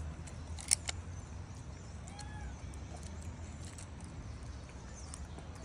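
Thin clear plastic handled by a macaque: one sharp crackle under a second in, then a few lighter clicks, over a low steady rumble. A short arching call sounds about two seconds in.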